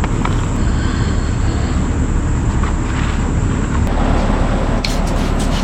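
Toyota SDK7 skid steer's engine running steadily with a heavy low rumble, with a few sharp clicks near the end.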